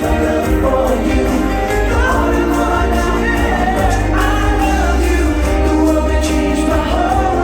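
The fireworks show's music soundtrack played over loudspeakers: a song with choir-like singing over a steady bass.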